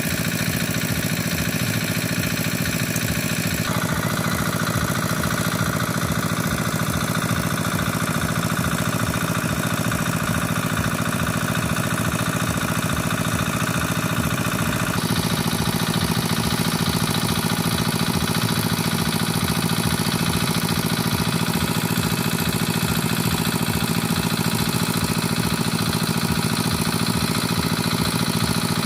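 A steady engine running at an even idle-like speed. Its tone shifts abruptly twice, about four seconds in and about fifteen seconds in.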